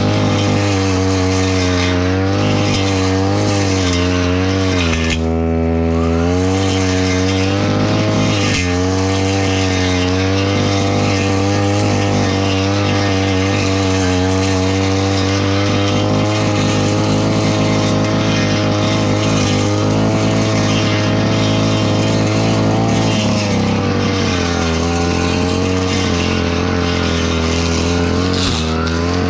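Petrol brush cutter's small engine running at high revs while cutting grass, its pitch wavering up and down as the throttle and the load from the grass change. About five seconds in, the revs drop briefly and pick back up.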